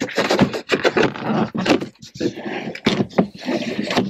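Tesla Model 3 plastic dashboard trim strip at the base of the windshield being pulled up by hand, with a run of sharp clicks and scraping as its retaining clips let go.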